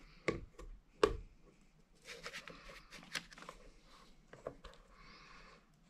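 Scissors snipping through the rubber cone of a roof pipe-flashing boot to open it to the stovepipe's size: two sharp snips in the first second or so, then scratchy rustling and smaller clicks as the rubber is cut and handled.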